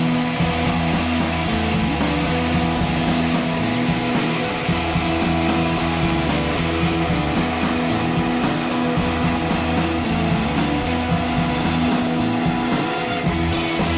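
Rock music with guitar, steady and loud.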